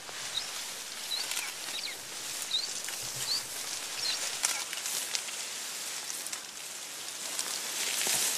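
Mountain forest ambience: a steady hiss, with about six short, high bird chirps in the first three and a half seconds and scattered snaps and rustles of vegetation.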